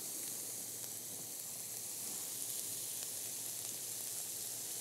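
Diced bell peppers, green onion and garlic sizzling steadily in oil in a frying pan as they sauté.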